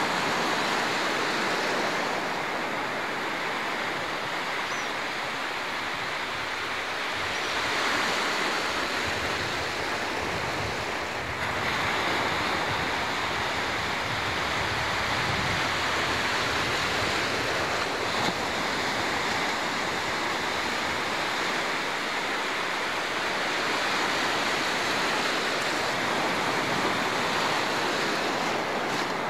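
Surf breaking in shallow water along a sandy beach: a steady wash of wave noise that swells and eases slightly.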